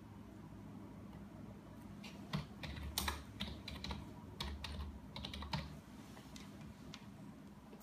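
Typing on a computer keyboard: a quick run of key clicks starting about two seconds in and stopping after about three and a half seconds.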